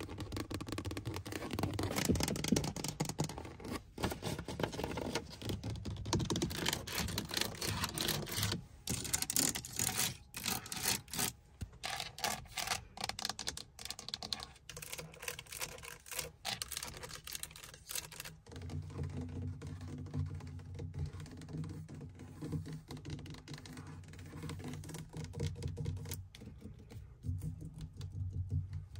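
Long fingernails tapping and scratching on a Mercedes-Benz car's interior trim, the leather seat and the steering wheel hub, in quick irregular clicks. About two-thirds of the way through the tapping turns softer and duller.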